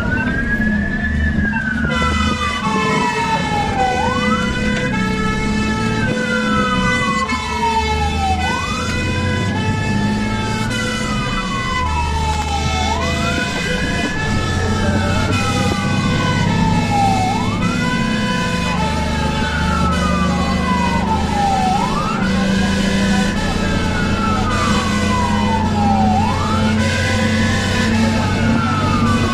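Fire engine siren wailing in a repeating cycle, each one a quick rise and a slow fall, about every four and a half seconds, over a truck engine running. From about two seconds in, a steady horn-like tone with several pitches sounds alongside it.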